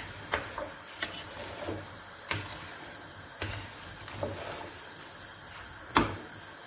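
Wooden spatula stirring diced vegetables in a metal pot, knocking against the pot's side six times at uneven intervals of about a second, with the loudest knock near the end.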